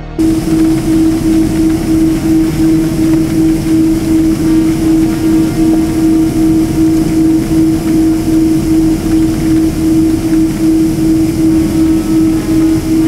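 Jet airliner's engines heard from inside the cabin while the plane moves on the ground: a loud, steady drone with a strong low hum that pulses about twice a second.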